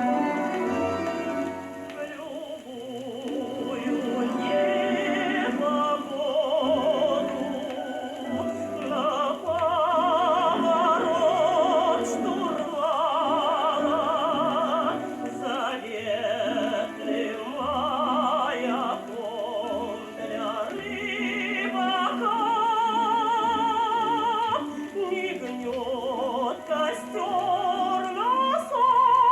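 Orchestral song music: a melody with wide vibrato carried over strings and a bass line, with little treble, as on an old record.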